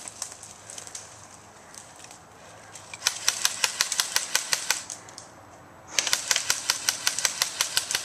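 Two bursts of full-auto fire from an airsoft electric gun, rapid sharp clicking shots at about ten a second, the first starting about three seconds in and lasting nearly two seconds, the second starting about six seconds in and lasting about two seconds.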